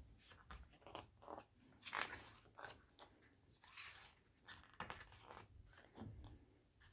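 Faint paper rustles and soft taps as the pages of a glossy photo book are handled and turned, in irregular short bursts.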